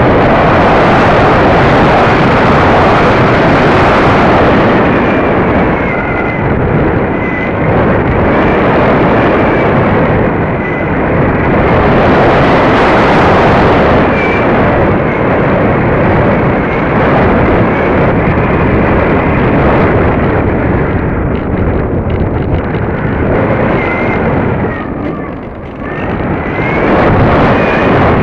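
Loud wind rush buffeting the onboard camera's microphone of a Bixler v1.1 RC foam plane in flight, swelling and easing with airspeed and dipping briefly near the end. A thin high whine from the plane's electric pusher motor wavers in pitch underneath.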